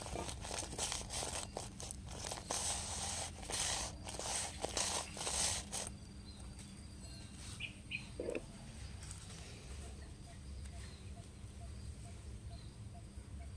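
Light clicks and rustles of ice-cream-cone candies being handled and set into a stainless steel grinder bowl, dense for about the first six seconds, then quieter. A faint regular chirp follows, about three times a second.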